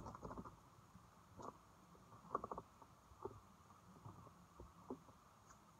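Faint, scattered knocks and clicks of boots and hands on a telescoping aluminium ladder as a person climbs it. There is a cluster of them at the start and a quick run of three or four about halfway through.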